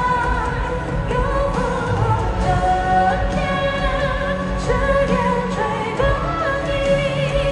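Live pop concert music: a male singer's voice with vibrato over full band accompaniment and heavy bass, recorded from the arena floor.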